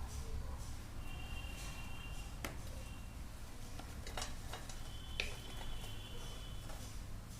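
A few sharp light clicks and taps, a few seconds apart, with brief faint squeaks over a steady low hum: gym chalk being handled.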